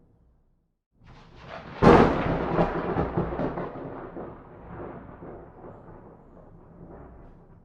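A thunderclap: a short rising rumble breaks into a sharp, loud crack about two seconds in. A rolling rumble follows and slowly fades away over about five seconds.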